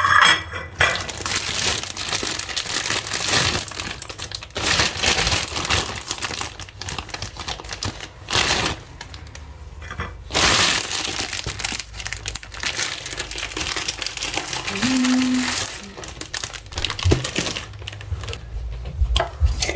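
Plastic bread bag crinkling and rustling in irregular bursts as it is opened and handled.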